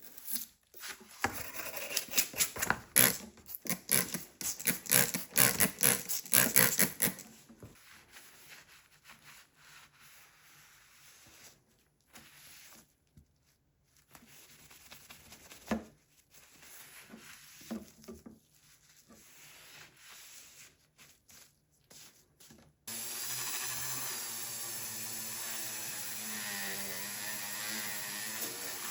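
Rapid scrubbing strokes against the metal of a chainsaw guide bar, thinning to quieter, intermittent rubbing. About 23 seconds in, a small rotary tool starts and runs steadily with a slightly wavering whine.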